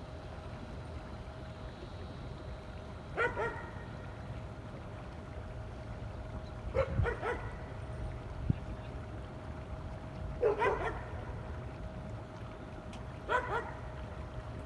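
A dog barking: four short bursts of two or three quick barks, about three to four seconds apart, over a steady low rumble.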